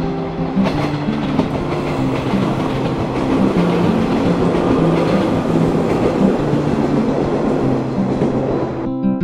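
A passing train, a steady loud rumble with a few sharp knocks near the start, over background music; the train noise cuts off suddenly near the end.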